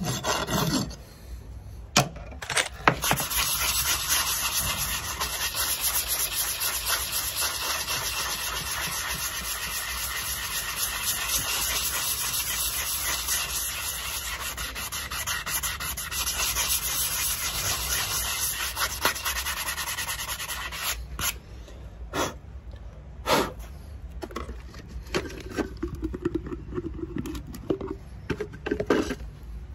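Sanding block rubbed in quick, steady strokes over a shod horse's front hoof wall, the final smoothing of the trim. The steady rubbing stops about 21 seconds in, leaving scattered short scrapes and knocks.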